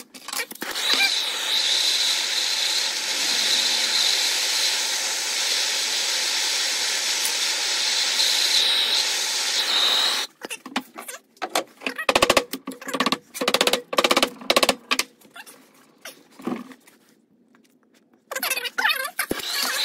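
Handheld gas torch flame hissing steadily, heating the aluminium engine case around the tappet block so it expands and the block will slide out. About ten seconds in the flame cuts off, and a run of clicks and knocks follows. The torch hisses again near the end.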